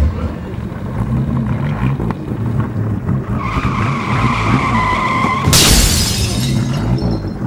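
Car engine running with an uneven low throb while the tyres spin. A steady tyre squeal sets in about three seconds in and ends in a loud, harsh rush of noise near the six-second mark.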